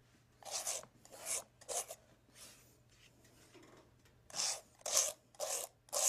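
Paintbrush scrubbing red oil paint back and forth onto a canvas board, a dry rasping swish with each stroke. Three strokes come first, then a short pause, then a steady run of about two strokes a second.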